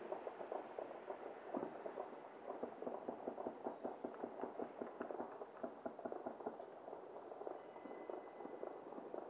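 Distant celebratory fireworks and gunfire: many sharp pops, several a second, overlapping into a continuous crackle. A faint high steady whistle sounds for about a second near the end.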